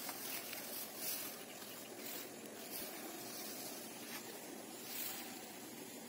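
Steady outdoor hiss with a few soft rustles, as of footsteps through tall grass.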